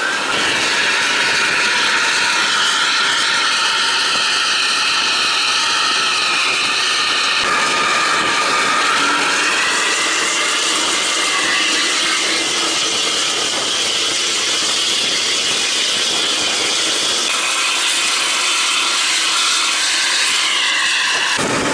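Intercity buses running hard on the highway with loud modified exhausts: a steady, high whistling howl of the kind a 'serigala' (wolf) exhaust gives, over a hiss of road and wind noise. The pitch of the howl shifts about seven seconds in.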